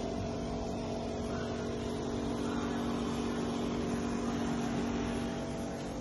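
Steady machine hum holding a few constant low tones, with a short knock right at the start.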